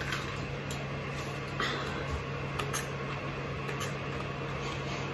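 Avamist nasal spray being pumped into the nostrils: a few short, faint spritzes with sniffs over a steady low hum.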